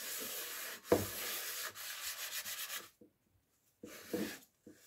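Kitchen sponge scrubbing a greasy stone-coated frying pan: quick continuous rubbing strokes, with a single knock about a second in. The scrubbing stops about three seconds in, then a few short strokes follow near the end.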